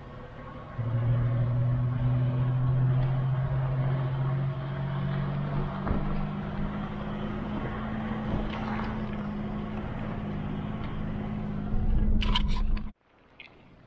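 Motor vehicle driving: a steady engine hum that shifts up in pitch about halfway through, with a few clicks near the end before it cuts off abruptly.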